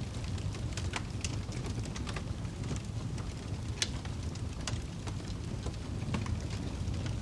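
Wood fire burning in a fireplace: a steady low rumble of flame with scattered sharp crackles and pops of burning wood, a few louder than the rest.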